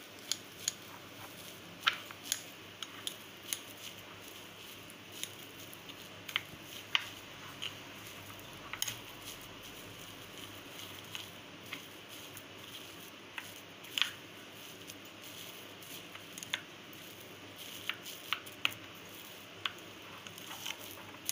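A spoon stirring a thick, powdery paste in a glass bowl, with irregular sharp clicks as it knocks against the glass, over a faint steady hiss.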